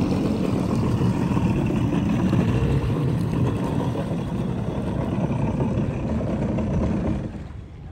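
Yamaha jet ski's engine running as it pulls away across the water, with water churning at the stern. The sound drops off sharply about seven seconds in.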